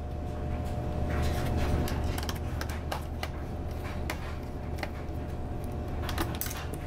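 Irregular small clicks and taps of plastic and metal laptop parts being handled, as a laptop motherboard and its bracket are worked loose. A steady low hum runs underneath.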